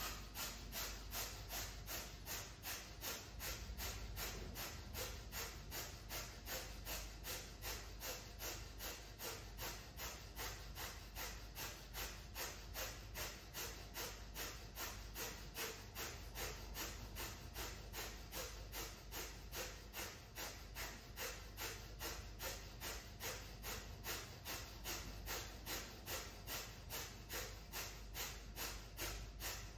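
Breath of fire: rapid, evenly paced forceful exhales through the nose, kept up without a break.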